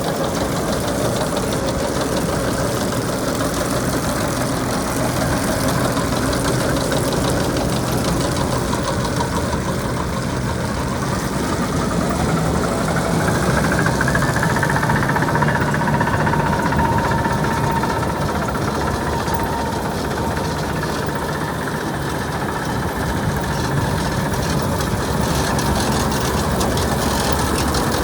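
Tractor engine running at a steady speed, likely the tractor that drives the New Holland 560RB round baler. About halfway through, a higher whine comes up and then eases off.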